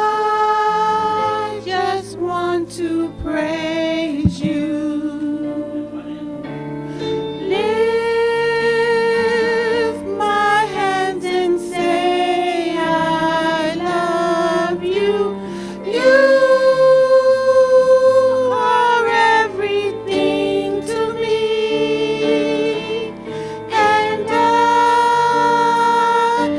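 Women singing a slow gospel praise song with electric keyboard accompaniment, drawing out long, wavering held notes.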